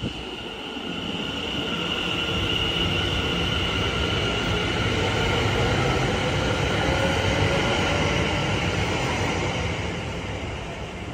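Greater Anglia electric passenger train running along the platform and pulling away, its sound swelling to a peak mid-way and fading near the end. A steady high whine rides over the rumble of the wheels, with a lower tone slowly rising in pitch as it goes.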